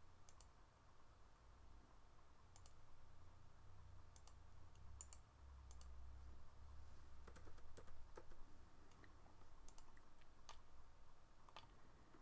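Faint, scattered clicks of a computer mouse and keyboard, a dozen or so at irregular intervals, over near-silent room tone with a low hum.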